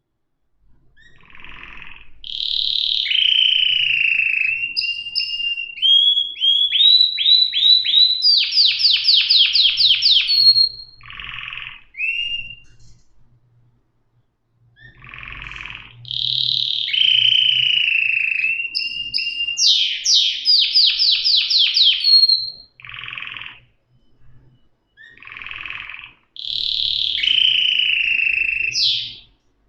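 Domestic canary singing in three long song bouts, each a run of trills and rolls of fast repeated high notes with a few gliding notes, separated by short pauses.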